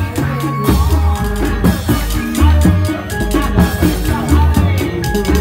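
Reog Indramayu ensemble music accompanying the masked dance: loud, driving drums with repeated deep bass notes and a melody of short high notes over a steady beat.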